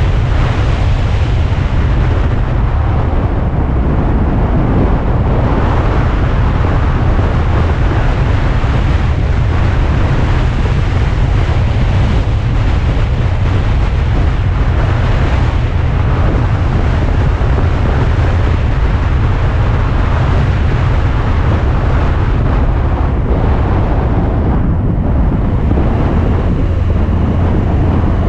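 Alfa Romeo Spider driving at a steady pace: a continuous low rumble of engine and tyre noise mixed with heavy wind buffeting on the camera microphone.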